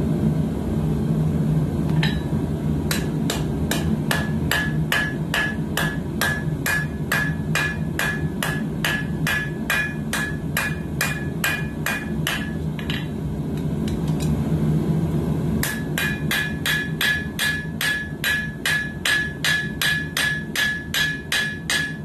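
Hand hammer forging a red-hot coil-spring steel knife blade on an anvil: after a single blow, quick even blows about three a second, each with a short ring. The blows stop for about two and a half seconds around the middle, then resume. A steady low hum runs underneath.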